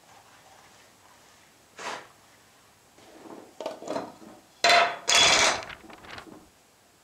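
Lid of a round metal tin being twisted and pulled off, with a few short metallic scrapes and clicks and then two louder scrapes about five seconds in.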